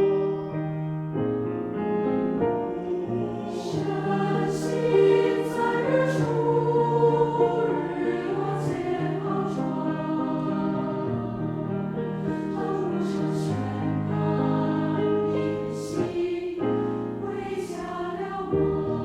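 Mixed choir singing in Chinese with piano accompaniment, sustained chords with audible sibilant consonants, in a reverberant church.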